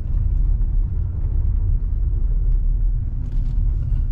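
Steady low rumble of a car driving slowly, heard from inside the cabin, with a few faint ticks about three seconds in.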